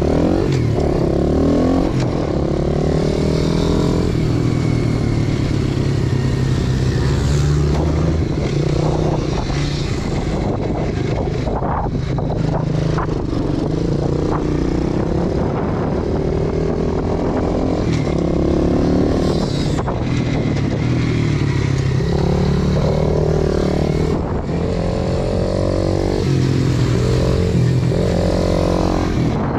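A 125 cc four-stroke single-cylinder pit bike engine under way, its revs rising and falling again and again as the throttle is opened and closed through the corners.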